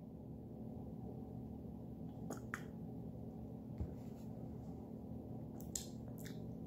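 Soft mouth clicks and lip smacks, a handful spread over the last few seconds, as the mouthful of hot black coffee is tasted, over a low steady room hum.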